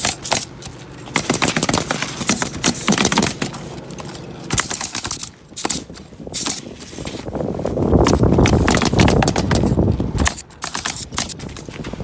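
Pneumatic roofing nailers firing in quick, irregular runs of sharp shots as shingles are nailed down. Several guns are going at once. About eight seconds in, a low rumble swells for a couple of seconds and is the loudest sound.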